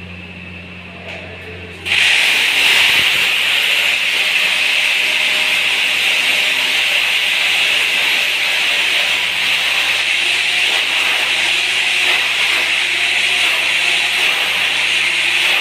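Handheld pest-control tool worked at the foot of a wall, running with a steady hissing noise that starts abruptly about two seconds in.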